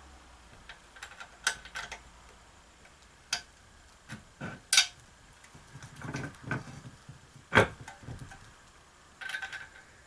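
Scattered light metal clinks, taps and rustling from handling a ceiling fan's metal mounting canopy and its wiring at the ceiling box, with several sharp clicks, the loudest about three-quarters of the way in.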